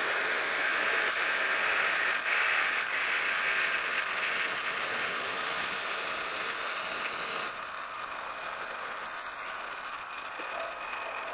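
Metal lathe running at slowed speed as a 31/64-inch twist drill in the tailstock bores into the spinning workpiece: a steady, noisy cutting sound with long chips rattling and scraping. It gets quieter about seven and a half seconds in.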